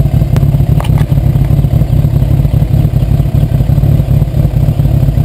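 Campagna T-Rex three-wheeler's motorcycle engine running steadily at low revs, a loud, rough, even idle with no revving.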